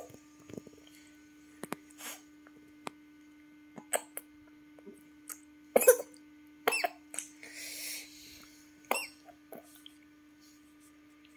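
A nursing infant makes short, scattered feeding noises: little gulps, clicks and small squeaky sounds every second or two, the loudest about halfway through. A steady low electrical hum lies underneath.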